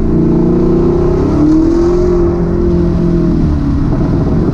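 Chevrolet Camaro's 6.2-litre LT1 V8 heard from inside the cabin while driving, its engine note climbing under acceleration over the first two seconds, holding, then falling away about three and a half seconds in.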